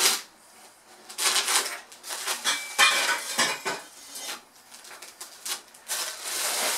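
Stainless steel exhaust pipes clinking and clanking as they are handled and set down, with a brief metallic ring a little under three seconds in. Near the end, the plastic wrapping around the pipes crinkles.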